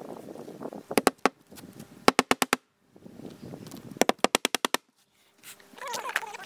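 Claw hammer nailing asphalt shingles onto a wooden roof deck: three bursts of quick sharp blows, the first of about three strikes, the next of about five, and the last of about seven in rapid succession.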